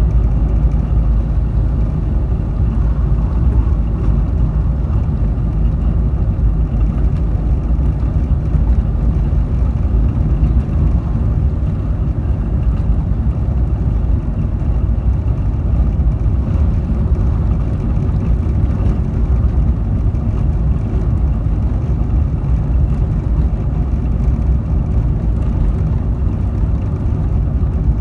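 A car being driven, with a steady low engine and road rumble that holds even throughout.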